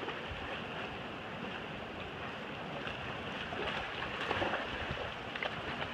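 Fast, shallow mountain river rushing steadily over rocks, with dogs splashing as they wade, a little louder about three and a half to four and a half seconds in.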